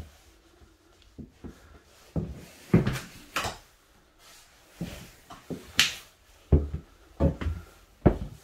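Footsteps on the floor and knocks from handling the camera while walking through a house: a string of irregular thumps, a few with a brushing hiss.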